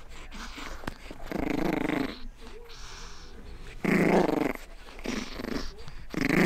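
Pug puppy play-growling while worrying a toy: three short growls, a couple of seconds apart.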